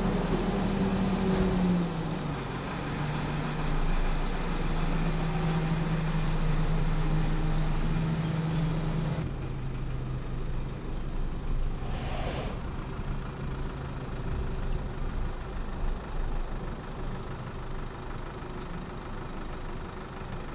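Tow vehicle's engine running at low speed, pulling the boat trailer out of the garage; the engine note steps lower about two seconds in and again about nine seconds in.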